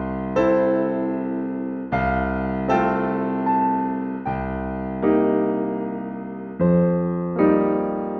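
Background music: a keyboard playing slow chords, each struck and left to fade, a new one every second or so.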